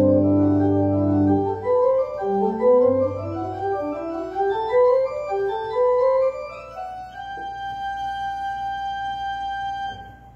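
Organ music: sustained notes climbing in repeated rising runs, then a long held chord for the last few seconds that stops just before the end.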